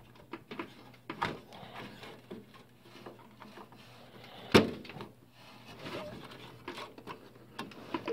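Desktop RAM modules being pulled out of and pushed back into motherboard memory slots inside a PC case: scattered clicks and plastic-and-metal knocks from the slot latches and handling, the loudest knock about four and a half seconds in, over a faint steady low hum.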